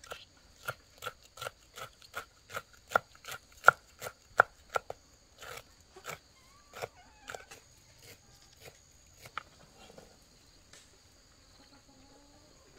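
Knife chopping on a wooden cutting board: steady strokes, about three a second, for roughly five seconds, then a few slower, spaced strokes before it stops.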